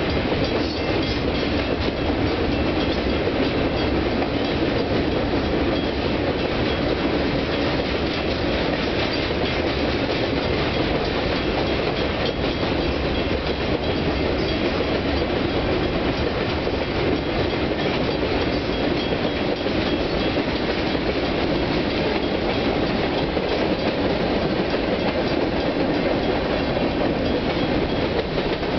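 Union Pacific manifest freight train's cars rolling past, with a steady rumble and clatter of the wheels on the rails.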